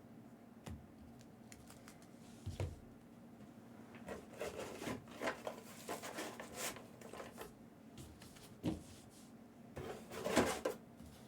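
Trading cards being handled and sorted by hand: scattered light clicks, taps and rustles, busiest about four to seven seconds in and again near the end.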